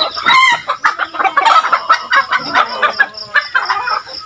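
Backyard chickens clucking and a rooster crowing, with a run of fast, high peeps from Muscovy ducklings.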